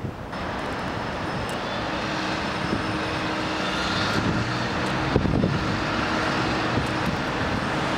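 Steady distant city traffic noise, a broad rumble and hiss that swells slightly toward the middle, with a faint steady hum running through it.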